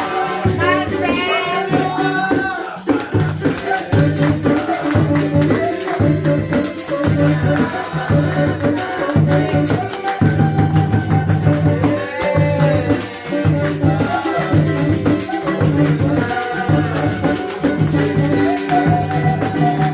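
Cuíca, the Brazilian friction drum (an Art Celsior Luxo model), played in a samba-style rhythm. Its low grunting 'roncando' tones pulse steadily, with sliding higher squeaks rising and falling now and then, over rapid rattling percussion.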